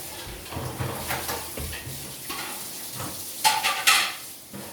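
Runny homemade glue slime being stirred and worked in a container, a wet, sticky scraping and squelching, with a few sharper clatters about three and a half to four seconds in.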